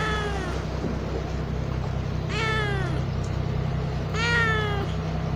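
Tabby kitten meowing three times, about two seconds apart, each meow rising then falling in pitch. A steady low hum runs underneath.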